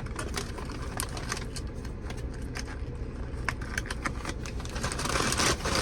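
Steady low hum of a car idling, heard from inside the cabin, with scattered small clicks of handling. A rustle of food packaging comes near the end.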